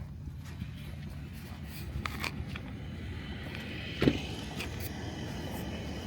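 Steady low rumble with a few light clacks around two seconds in and one sharp knock about four seconds in.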